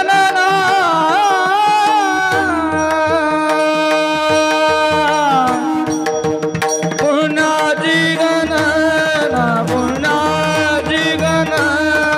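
A bhajan singer's voice holding long, ornamented notes, with mridang drum strokes and a steady drone underneath. One long note rises at the start, is held for about five seconds and falls away; further sung phrases follow from about seven seconds in.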